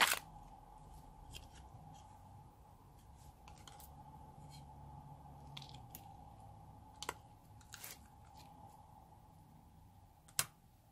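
A plastic slime container's lid snaps open with a sharp click, then glossy slime is squeezed and stretched in the hands, giving scattered small clicks and pops, with a louder click near the end.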